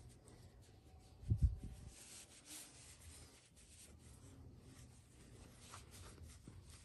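Faint rustling of a hand rubbing a Rottweiler's fur and ears, with one low thump about a second and a half in.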